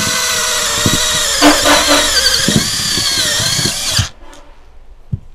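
Makute brushed-motor cordless drill driving a long spiral auger bit through a hard wooden block, its motor whining steadily under load. The whine stops suddenly about four seconds in, once the bit has gone through the block.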